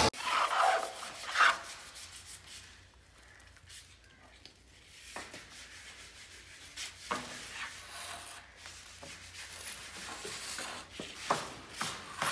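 Hands rubbing and shifting a wooden door frame lying on a concrete floor, with louder scraping in the first second or so and a few knocks of wood later on.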